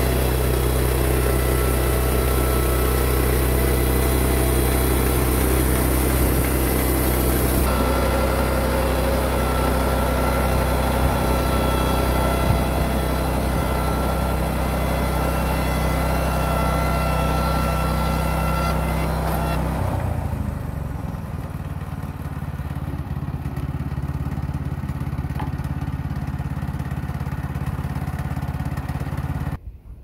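Woodland Mills portable bandsaw mill running, its Kohler gas engine steady while the band blade cuts poplar boards to width. The sound changes abruptly about eight seconds in and again about twenty seconds in, and it cuts off just before the end.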